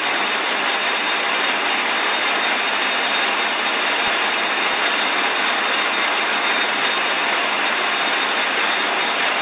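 Metal lathe running with a cutting tool taking a cut on a spinning metal shaft: a loud, steady cutting noise with a faint high whine and light regular ticking, a few ticks a second.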